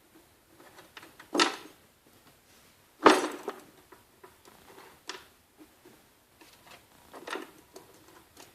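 Sharp knocks and clatter of plastic reel flanges and threaded rods being handled and set down during assembly, four distinct knocks with the loudest about three seconds in, and faint rustling between them.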